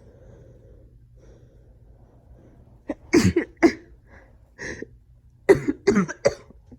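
A woman with a head cold coughing in two short fits, a few quick coughs about three seconds in and four more near the end.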